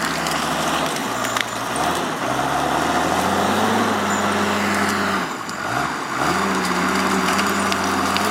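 Diesel engine of a Timberjack forestry skidder working under load, its revs dropping about a second in, climbing again, then falling away sharply around the middle and picking back up. A few sharp cracks and knocks sound over the engine.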